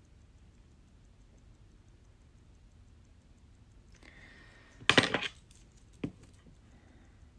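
Small metal watchmaking tools clinking on a hard bench top: a quick cluster of sharp clinks about five seconds in, then a single click a second later.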